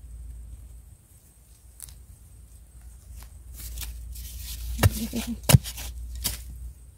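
Digging in dry, crumbly soil around wild yam tubers with gloved hands and a digging tool: earth scraping and crumbling, with a few sharp strikes of the tool into the ground about five seconds in.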